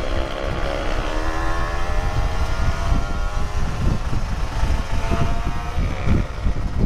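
Motorcycle engine pulling steadily higher in pitch for about six seconds, then dropping off near the end, with wind buffeting the microphone throughout.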